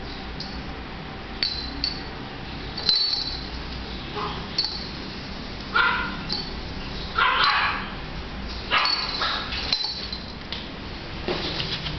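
Shih tzu puppy giving a few short yips and barks, about three, six and seven and a half seconds in and again near nine seconds, with small light clinks in between.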